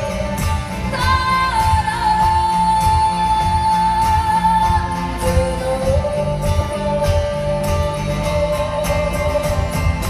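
Live band music: a long held high melody note from about a second in, giving way about halfway to a lower held note, over a steady bass and drum pulse.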